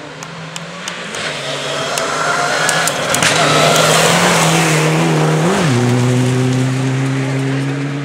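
Mitsubishi Lancer Evolution rally car's turbocharged four-cylinder engine at full throttle as it approaches and passes on a gravel stage. It is loudest about three to five seconds in, with the hiss of tyres and spraying gravel, then the engine note drops about five and a half seconds in and fades as the car pulls away.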